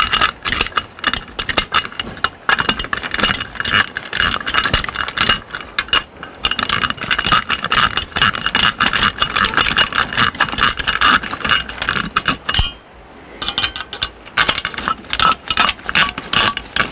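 Screwdriver driving and snugging the screws on a Dometic RV furnace's burner assembly and gas valve, with rapid ratchet-like clicking. A single knock and a short pause come about 13 seconds in.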